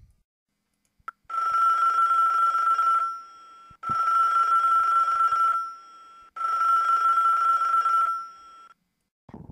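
A telephone ringing three times: long, steady rings separated by short gaps, with a brief click just before the first.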